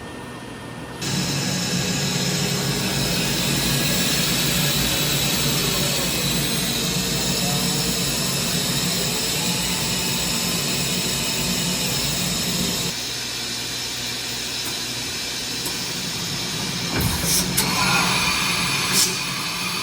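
1998 Hurco BMC 4020 vertical machining center running, a steady mechanical hum and hiss that jumps up sharply about a second in and eases off partway through. Several sharp knocks and a brief ringing tone come near the end.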